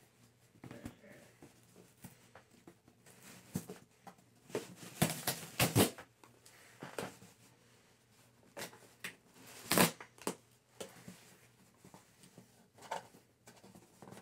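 A cardboard shipping box being opened and handled by hand: a series of short scrapes and rustles of cardboard and packing, loudest about five to six seconds in and again near ten seconds.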